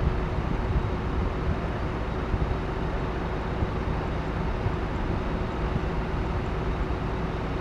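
Hino coach's diesel engine running as the bus pulls slowly away: a steady low rumble with a steady hum over it.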